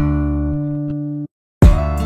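Background music on acoustic guitar. A strummed chord rings on, cuts off abruptly into a brief silence, then a new strum begins near the end.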